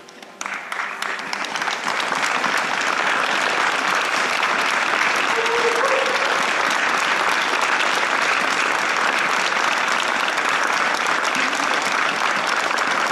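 Audience applause that breaks out as the music stops, building over the first couple of seconds into steady clapping.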